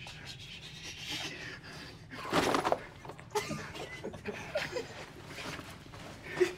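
Stifled vocal sounds from people trying to stay quiet, short gasps and held-back laughs, over the rustle of nylon backpacks being handled, with a louder burst about two and a half seconds in.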